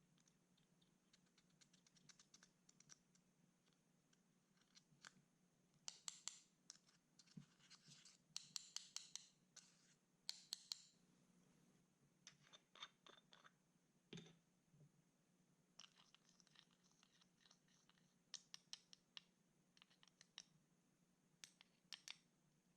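Clear slime being mixed with eyeshadow by hand: quiet bursts of quick clicks and crackles, coming in clusters several times.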